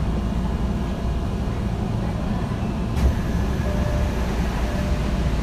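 Steady low rumble and hum of a Tokyo Metro 2000-series subway train standing at an underground platform, with a single sharp click about three seconds in and a faint steady tone joining soon after.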